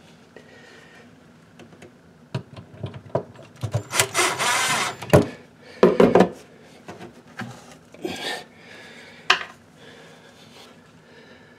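Hand work at a wall box: scattered clicks and knocks, with a harsh scraping and rubbing stretch about four seconds in and shorter scrapes around six and eight seconds.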